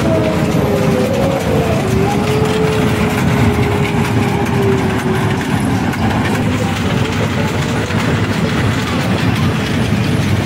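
Loud, steady fairground din with a kiddie train ride running round its track. A held tone that shifts a little in pitch sounds over it for the first five seconds or so.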